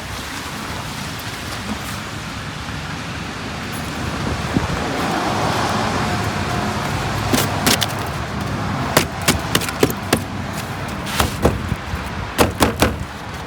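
Van running with steady road and engine rumble heard from inside the cabin. In the second half comes a string of sharp, irregular clicks and knocks.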